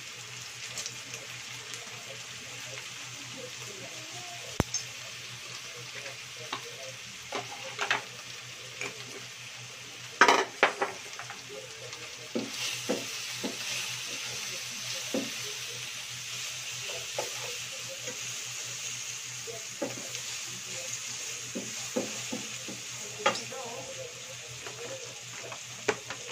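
Pork cubes with onion and garlic frying in a nonstick pan: a steady sizzle, with a plastic spatula scraping and knocking against the pan as the meat is stirred and turned, the loudest strokes about ten seconds in. A low steady hum runs underneath.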